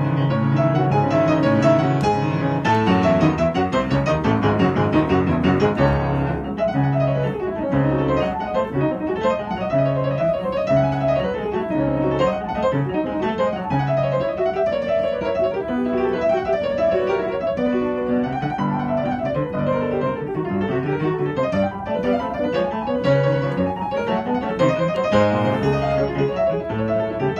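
Piano playing a classical piece: quick rising and falling runs of notes over a low note repeated about once a second.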